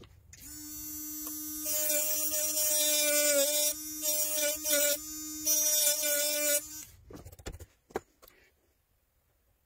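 A small handheld electric motor tool running for about six seconds, its pitch sagging briefly several times as it is loaded, with stretches of loud high hissing grind. A few sharp knocks follow near the end.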